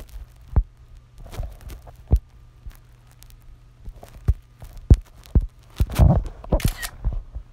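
Scattered soft thumps and clicks of an iPhone being handled, its screen scrolled and tapped, over a low steady hum. The knocks come irregularly and bunch together about six seconds in.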